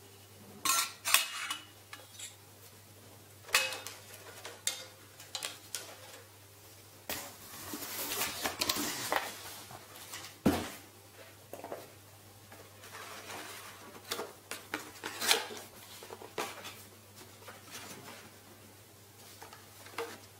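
A stainless steel gooseneck pour-over kettle being handled: scattered sharp metallic clinks and knocks of its lid and body, the loudest about a second in. A stretch of rustling comes in the middle, and a dull knock follows.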